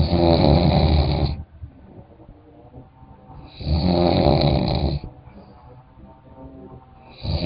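A person snoring in their sleep: two long snores about three and a half seconds apart, each lasting over a second, with a third beginning near the end, and quieter breathing between them.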